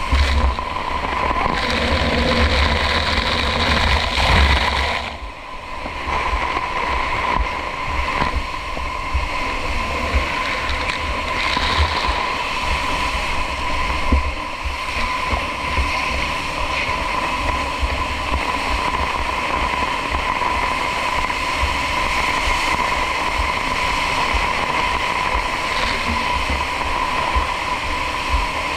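Steady rush of water mixed with engine noise and a constant whine, with wind buffeting the microphone; the sound dips briefly about five seconds in.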